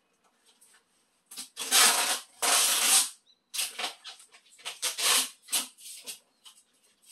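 Packing tape being ripped off the roll while sealing a cardboard box: one long rasping pull of over a second, then several shorter pulls.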